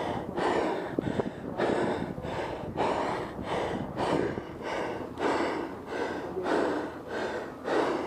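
A person breathing hard and fast close to the microphone, one breath about every half second in a steady rhythm.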